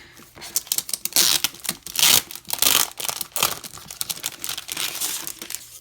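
Packaging crinkling and rustling as it is handled, in irregular loud bursts.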